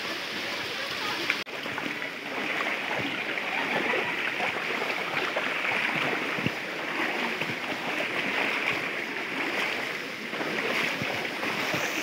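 Flowing stream water, a steady rushing hiss.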